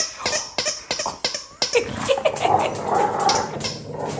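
A dog playing tug-of-war with a plush toy: a quick run of clicks and rustling, then dog vocal sounds in the middle of the tug.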